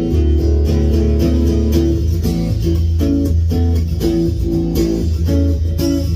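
Solo acoustic guitar played fingerstyle: a slow melody of picked notes over low bass notes left ringing.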